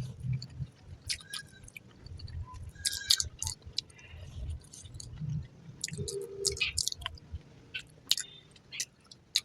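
Close-up chewing of a mouthful of fried rice: soft irregular thuds of the jaw, with wet lip and mouth smacks and clicks between them.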